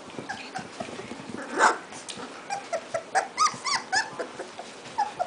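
A litter of two-and-a-half-week-old bird-dog puppies whimpering and squeaking. One whine comes about one and a half seconds in, then a quick run of short, high squeaks between about three and four seconds in.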